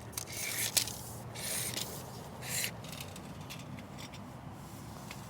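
Three short, soft scraping sounds about a second apart, then faint background.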